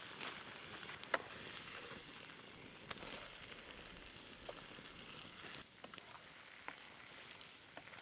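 Food cooking over a campfire: a steady sizzling hiss with scattered sharp crackles and pops.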